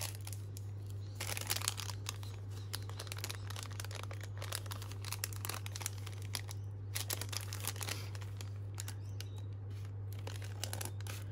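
Paper rustling and crinkling as paper stickers are handled and a small paper bag is picked up, with scissors cutting into the bag near the end. A steady low hum runs underneath.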